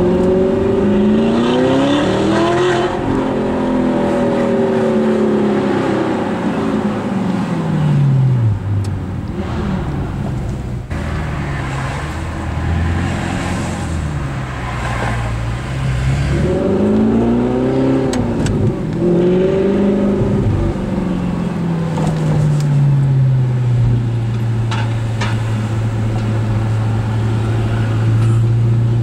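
Audi R8 with an Armytrix aftermarket exhaust, heard from inside the cabin. The engine pulls up through the revs and then drops back twice as the car accelerates and eases off, then runs low and steady near the end.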